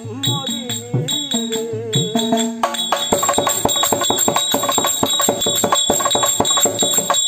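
Therukoothu street-theatre ensemble music. A bending melody plays over steady ringing bells, then about two and a half seconds in fast drumming with jingling bells takes over.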